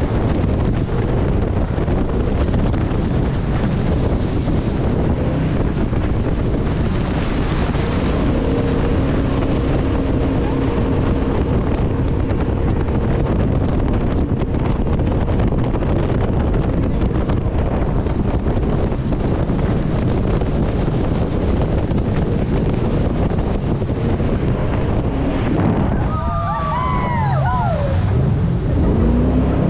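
Jet boat running fast on a river, its engine and water jet mixed with rushing water and heavy wind buffeting the microphone. Late on a brief falling whine is heard, and near the end the engine note rises.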